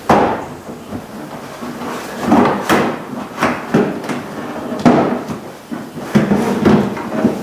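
Plastic front bumper cover of a 2003 Honda Odyssey knocking and clunking as it is pushed and worked into place on the van, about eight sharp hollow knocks at irregular intervals.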